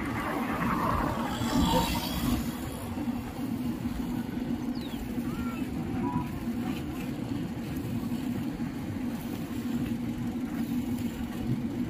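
Steady rumble of a motor vehicle moving along a road, with wind and road noise.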